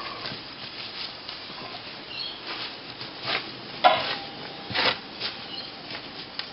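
Scattered light knocks and scrapes of handling, about half a dozen short separate sounds over a few seconds.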